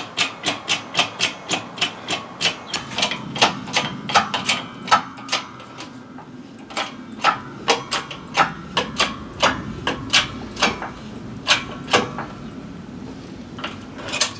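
Rapid sharp metallic clicks or taps, about four to five a second, with a short lull about six seconds in, then more irregular clicking over a low hum. They come from pressing a wheel bearing out of the steering knuckle on a 20-ton hydraulic shop press, with the bearing race stuck fast in the knuckle.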